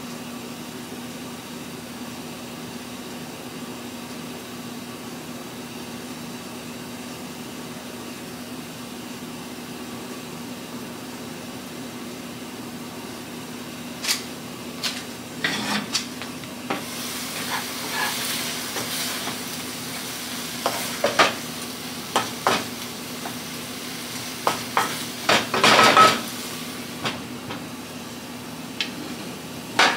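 A steady low hum at first. From about halfway, a wooden spoon knocks and scrapes in a lidded frying pan of cauliflower rice, with sizzling and a quick run of clacks, loudest near the end.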